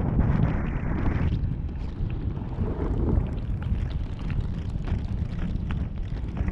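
Wind buffeting the microphone of a snowboarder riding downhill, with the board's base hissing and scraping over the snow; the hiss is strongest for the first second or so, then eases.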